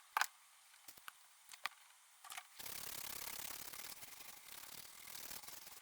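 Small handling clicks as tools are worked over a circuit board, then about three seconds of steady scratchy rubbing.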